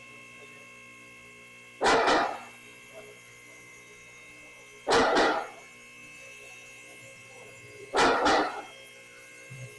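Two-post vehicle lift raising a car: the electric-hydraulic power unit hums steadily while the safety locks on the two columns clank loudly about every three seconds as the carriages ride past each lock position, each clank a quick doubled metallic strike that rings briefly.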